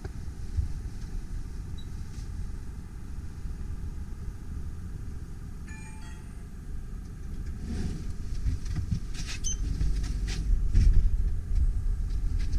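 Passenger lift arriving and its stainless steel sliding doors opening: a brief electronic chime about six seconds in, then clicks and knocks as the doors move, over a steady low rumble.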